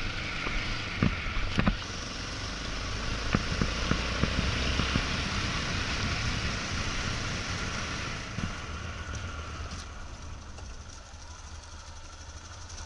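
Motorcycle engine running under way on a rough gravel track, with wind rush on the helmet camera and a few sharp knocks from stones in the first few seconds. The sound eases off about eight seconds in as the ride slows.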